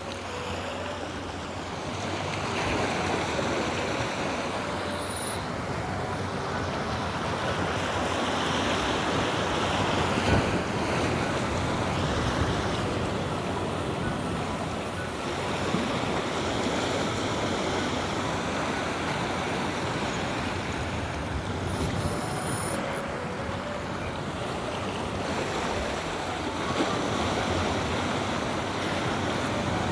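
Sea surf surging and washing over an offshore rock, a continuous rushing that swells and eases every few seconds, with some wind on the microphone.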